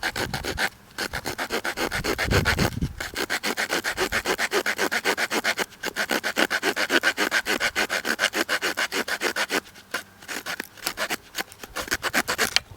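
Wood saw blade of a Victorinox Walker pocket knife sawing wood: quick rasping back-and-forth strokes, several a second, in runs broken by short pauses.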